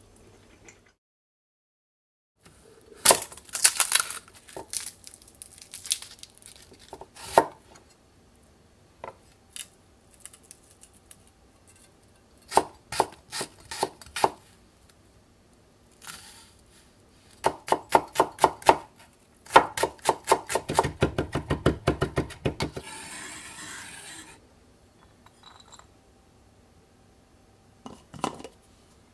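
Kitchen knife chopping garlic on a wooden cutting board: scattered cuts, then quick rhythmic runs of strokes as the clove is minced, followed by a short scrape. A few light knocks near the end.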